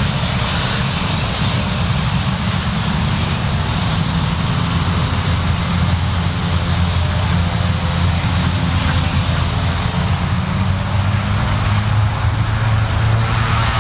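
Pilatus PC-12's single Pratt & Whitney Canada PT6A-67B turboprop at take-off power: a loud, steady drone with a low propeller hum and a faint high turbine whine that rises slowly in the second half.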